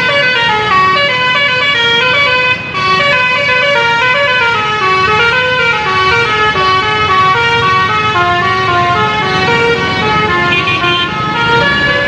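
Bus telolet horn playing a tune: a continuous run of loud pitched notes stepping up and down, with traffic noise underneath.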